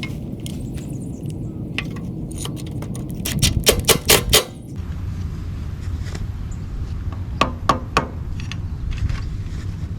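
Metal hardware and tools clinking while an electrical box is mounted on a pole: a quick run of about five sharp clinks near four seconds in and three more a little after seven seconds, over a steady low rumble.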